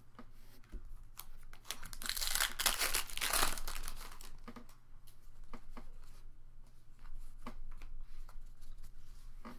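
Pokémon booster pack wrapper being torn open and crinkled, loudest about two to three and a half seconds in, followed by light clicks and rustles of the cards being handled.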